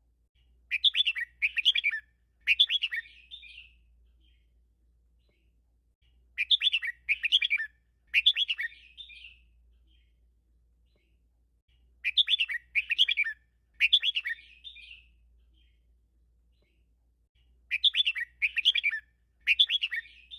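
Red-whiskered bulbul singing the 'double-three' (เบิ้ล 3) song four times, about every six seconds: three quick warbled notes and then a short trailing flourish each time. This is a master-bird (แม่ครู) song of the kind played to teach caged bulbuls.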